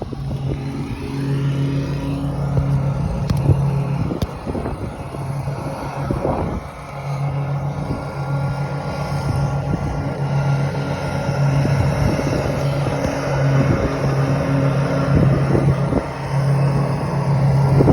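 Wind buffeting the microphone outdoors, with a steady low hum underneath that drops out briefly several times, and a few light clicks.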